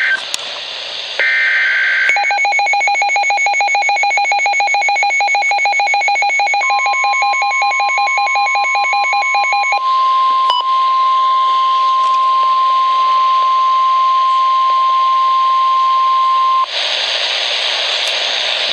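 NOAA Weather Radio emergency alert on a Midland WR-100 receiver. The tail of the SAME data header comes first, as short warbling two-tone digital bursts. The radio's own rapid pulsing alarm beep follows, overlapped from about a third of the way in by the steady 1050 Hz warning alarm tone. That tone holds for about ten seconds, then cuts to receiver static just before the voice message.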